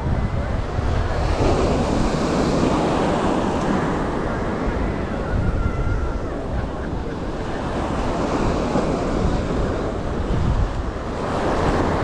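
Ocean surf breaking and washing up the beach, swelling about a second in and again near the end, with wind buffeting the microphone as a steady low rumble.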